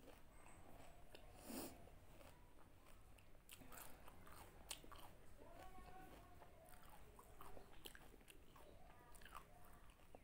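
Faint close-up chewing of pani puri: a mouthful of crisp fried puri shells crunching, with scattered short crackles.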